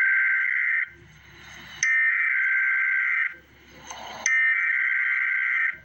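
Emergency Alert System SAME header: the end of one digital data burst and then two more, each about a second and a half long and made of two tones, with about a second of faint hiss between them. These coded bursts open an EAS alert.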